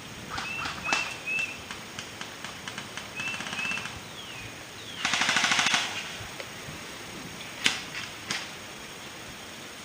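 Airsoft electric guns firing on full auto: a short rapid burst about three seconds in, then a louder, denser burst lasting under a second about five seconds in, followed by two single sharp cracks near the end.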